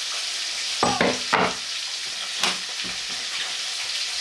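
Food sizzling steadily in a frying pan on a gas stove. A few knocks and clatters come through it, two close together about a second in and one more a little past the middle, as a wooden chopping board is handled.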